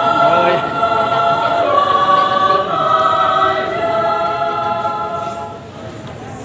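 A women's choir singing in harmony, holding long chords that die down near the end.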